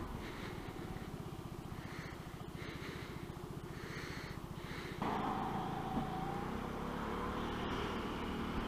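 Motorcycle engine running at low revs with an even low pulse, recorded from the rider's helmet. About five seconds in it changes abruptly to a louder, steadier engine note that falls a little in pitch.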